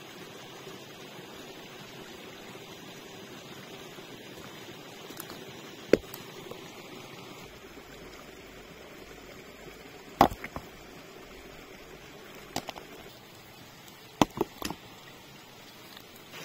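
Scattered sharp knocks, hard objects striking, over a steady rushing noise: one about six seconds in, another with two smaller ones close behind, a quick pair, then a cluster of three near the end.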